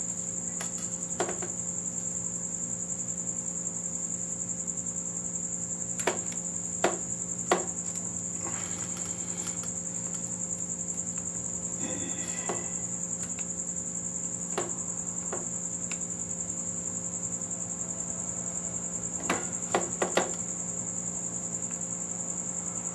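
Scattered sharp metal clicks and clinks of hand tools being handled, one ringing briefly about twelve seconds in, over a steady high-pitched whine and low hum.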